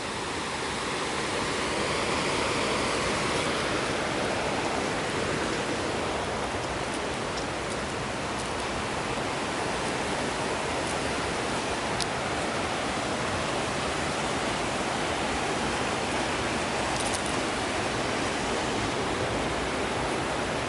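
Steady rush of water from the falls along the Kawazu river, growing louder over the first couple of seconds and then even throughout. There is one faint tick about halfway through.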